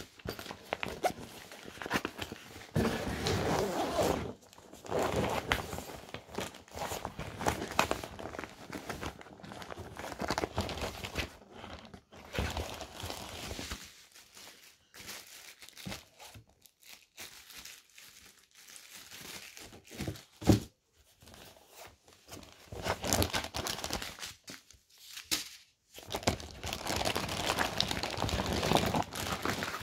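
Crinkling and rustling of plastic wrapping and a nylon carrying bag being handled in uneven bursts, quieter for a while in the middle. A single sharp knock about two-thirds of the way in is the loudest moment.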